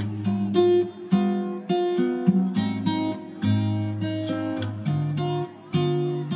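Background music on acoustic guitar: a run of plucked and strummed notes, each ringing and fading.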